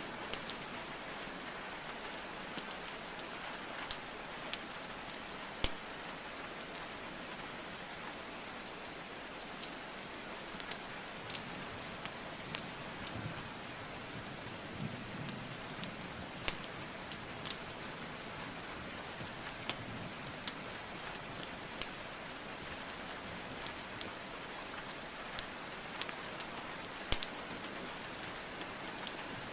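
Steady rainfall hissing, with sharp pops and crackles of burning wood logs scattered irregularly through it.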